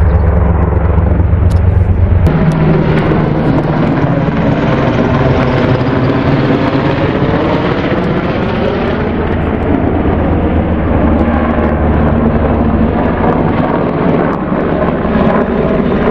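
Helicopter flying low overhead, loud: a deep rotor throb with engine whine, its pitch sliding down as it passes and moves off.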